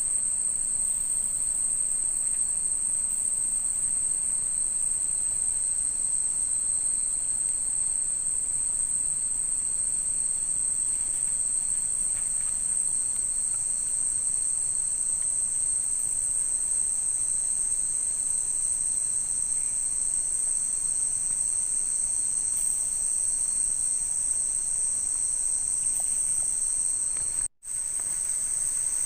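A steady, high-pitched chorus of night insects in the tropical forest, unbroken except for a momentary cut-out near the end.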